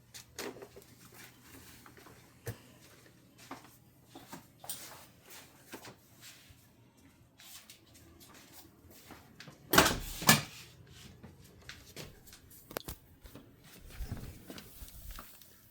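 Scattered light clicks and knocks of handling and movement, with a louder double thump about ten seconds in.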